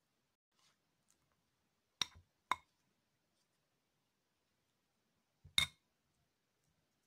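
Spoon clinking against a bowl: two quick knocks about two seconds in, then one more a few seconds later.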